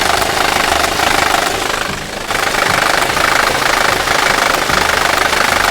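Third-generation VW/Audi EA888 TSI petrol engine running with a loud, fast, even metallic clatter, the knock known as 'dieseling'. In these engines it is typically caused by a failing camshaft phaser control valve.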